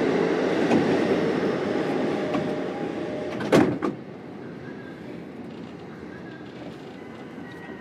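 E233-series electric train heard from inside a motor car, its running noise fading as it slows. About three and a half seconds in there is a short, loud burst of noise. After that only the quiet steady hum of the train standing still remains.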